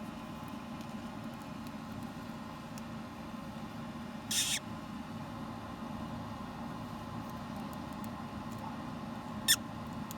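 Moluccan cockatoo chick in its egg giving two short high squeaks, a longer one about four seconds in and a brief falling one near the end, over a steady low hum. The chick is struggling to break out of the shell and is being helped to hatch.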